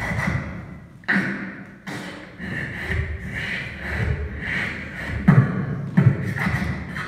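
Live beatboxing: sparse vocal kick-drum hits with hissed and hummed sounds between them, thinning out briefly about a second in.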